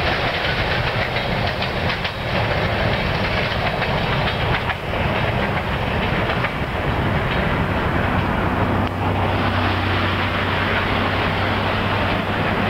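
Freight cars rolling past at close range: a steady rush and rumble of steel wheels on the rails, with occasional clacks over rail joints. A low steady hum comes in about two-thirds of the way through.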